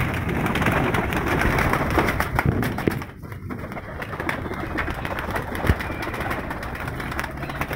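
Several white domestic pigeons flapping their wings in a rapid clatter as they fly up around a wire-mesh loft while one is caught by hand. The flapping is loudest for about the first three seconds, then drops off.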